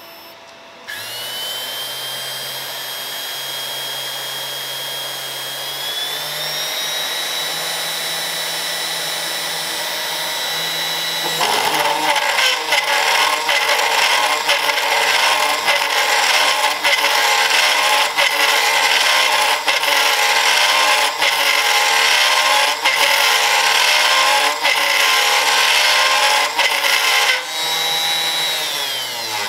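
CNC router spindle with a fishtail bit running at 12,000 RPM, cutting acrylic at 0.5 mm per pass. About a second in it spins up to a steady high whine that steps up in pitch, and around eleven seconds in the bit bites into the acrylic sheet and a loud, rough cutting noise runs for about sixteen seconds. The cutting then stops, leaving the whine, which falls in pitch at the end as the spindle winds down.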